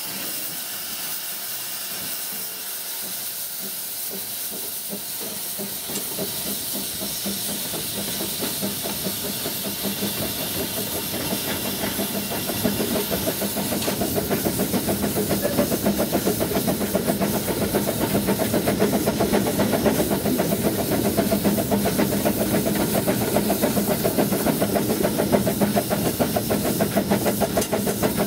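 Baldwin WD778 narrow-gauge 4-6-0 tank steam locomotive heard close up from the footplate: steam hissing, then from about six seconds in a fast rhythmic beat of the working engine builds and grows louder, holding steady through the rest.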